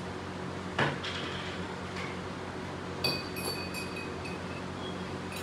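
Tableware sounds at a dinner table: a single knock about a second in, then a few light clinks of dishes and utensils, some with a brief ringing tone, around three to four seconds in, over a steady low hum.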